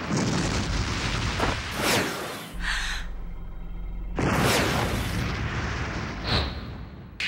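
Film sound-effect explosions and booms, about five in a row, with a low steady hum between two of them near the middle.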